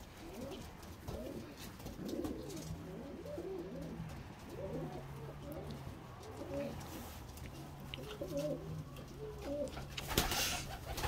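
A flock of domestic pigeons cooing, many overlapping rolling coos one after another. Near the end there is a brief louder flutter of wings.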